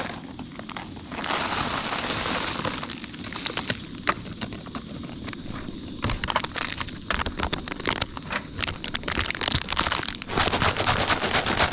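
Pot of water coming to a boil on a portable camp stove, with steam hissing out of the lid's vent holes and rapid crackling and sputtering from about six seconds in. The steam venting from the holes is the sign that the water is ready.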